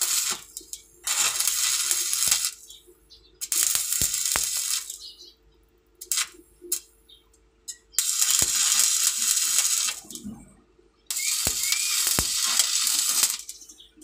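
Electric arc welding crackling in bursts of about one to two and a half seconds, with short pauses between them as the arc is struck and broken. There are a few sharp clicks in the pauses and a faint steady hum underneath.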